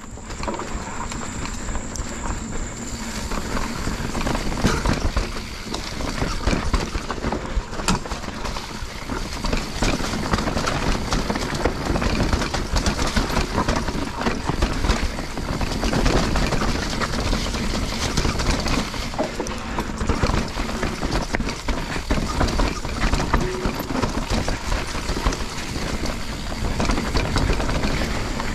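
Mountain bike riding down a rocky dirt trail: continuous rolling noise of the tyres over stones and roots, with the chain and frame rattling.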